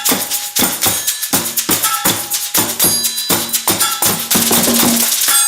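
Percussion music with a steady, fast beat of sharp hits and jingling, shaker-like sounds, plus a few pitched ringing tones. It stops abruptly just before the end, and the last pitched notes ring out and fade.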